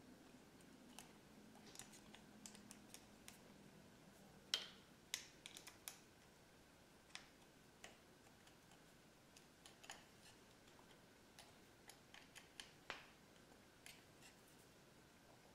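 Faint scattered clicks and small taps of an Allen key and a plastic handlebar switch clamp being fitted and tightened, the sharpest pair about four and a half and five seconds in.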